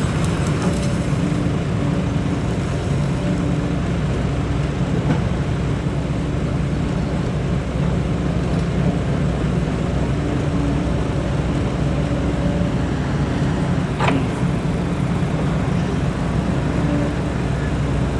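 Large truck engine running steadily with a low, even drone, with a single sharp click about fourteen seconds in.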